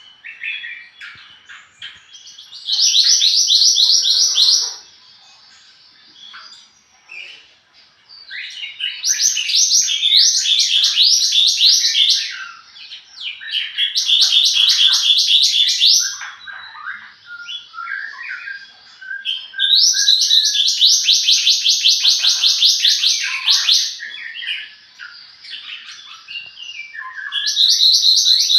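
A songbird sold as 'mantenan gunung' singing a masteran (tutor) song: loud, fast, high trills lasting a few seconds each, repeated five times, with softer chirps and twitters in between.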